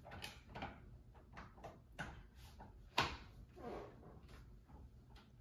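Light plastic clicks and knocks from a gaming chair's armrest being worked through its adjustments, with one sharper click about three seconds in.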